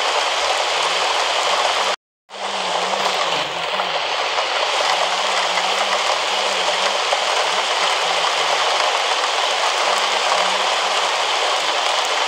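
Heavy rain pouring steadily, a dense even hiss of falling water. The sound cuts out completely for a moment about two seconds in, then the rain continues.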